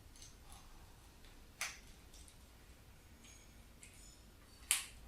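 Two sharp clicks about three seconds apart, with faint small ticks between: a screwdriver and small plastic and metal parts handled while the earth wire is fastened into the terminal of a three-pin plug.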